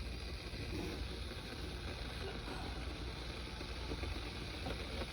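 Electric kettle heating water from room temperature, a steady low rumble with a light hiss as the water begins to warm.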